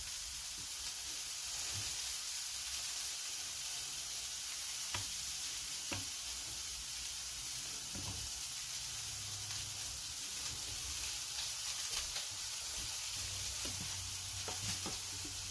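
Battered onion rings deep-frying in hot oil: a steady sizzle, with a few light clicks and knocks now and then.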